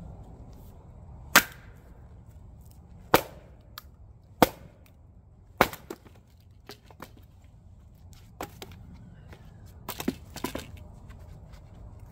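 Council Tools splitting axe striking firewood rounds: four sharp, loud chops a second or so apart in the first six seconds, then fainter knocks and a quick cluster of hits near the end.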